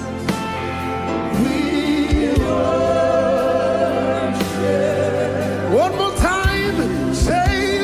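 Live gospel worship music: a choir and voices singing over sustained held chords, with a few low beats coming in after about six seconds.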